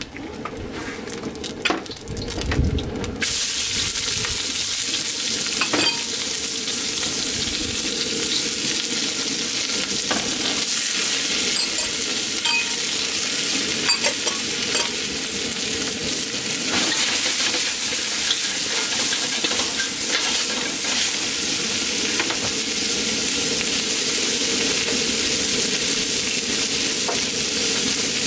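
Vegetables sizzling in hot oil in a seasoned wok as they are stir-fried, with scattered clicks of a utensil against the wok. About three seconds in the sizzle jumps up sharply as the vegetables hit the oil, then holds loud and steady.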